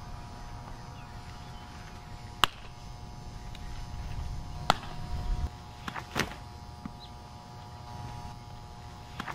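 Softballs popping into a catcher's mitt: a few sharp single smacks a couple of seconds apart.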